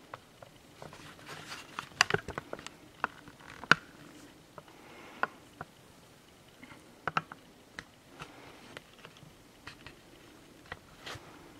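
Handling noise: scattered light clicks and taps, bunched about two seconds in, with single sharper clicks later on, over a quiet room background.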